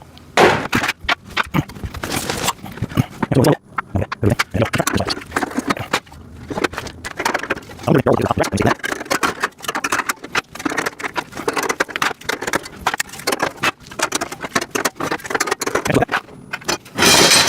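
Metal rack parts and plastic parts bins clattering, clicking and knocking in irregular bursts as the rack is handled and fitted together, with a louder scrape near the end.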